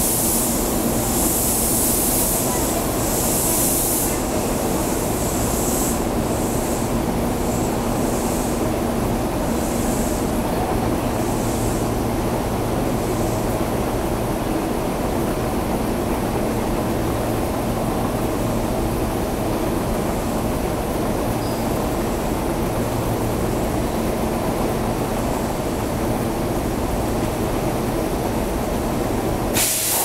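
Steady rumble and hum of a Kintetsu electric train, with hissing that comes and goes through about the first dozen seconds.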